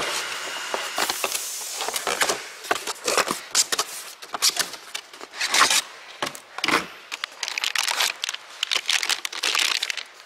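Packing tape tearing and cardboard flaps rustling as a shipping box is opened, then the crinkle of foil anti-static bags holding hard drives as one is lifted out. The rustling comes in irregular bursts.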